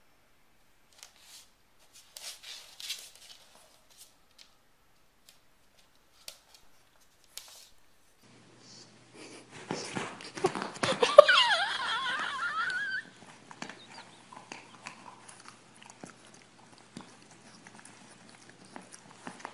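English bulldog puppy: faint scattered clicks and rustles, then a loud, wavering, high-pitched whine that lasts about three seconds, starting about ten seconds in.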